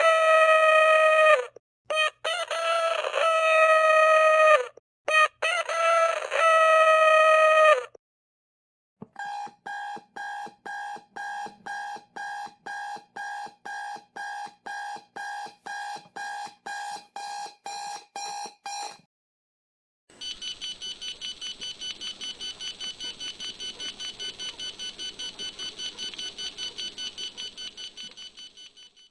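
A run of alarm-clock sounds: three long crowing calls, each falling in pitch at its end, then electronic alarm beeping at about two beeps a second for about ten seconds, then a rapid high-pitched bell ringing.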